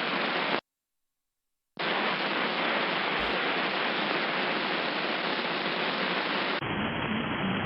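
Steady hiss of HF band noise and static from an Icom IC-7300 receiver, with no station audible. It cuts out completely for about a second near the start, then comes back, and near the end it turns duller.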